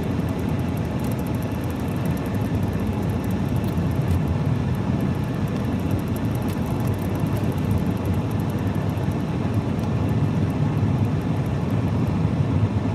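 Steady road noise inside a moving car's cabin: a low, even rumble of tyres and engine as the car drives along a street.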